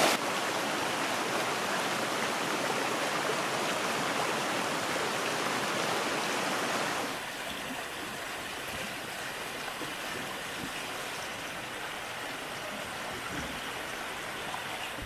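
Snowmelt mountain stream rushing and splashing over rocks, a steady wash of water. About seven seconds in it drops to a quieter level.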